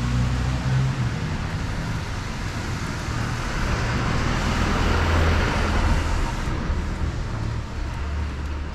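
A car passing close by on a wet street: a steady low engine hum with tyre hiss that swells to a peak about five seconds in and fades near the end.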